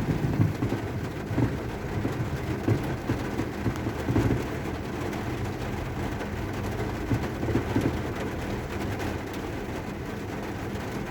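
Fireworks booming and rumbling in the distance, several irregular bursts in the first four seconds, then a steadier rumble.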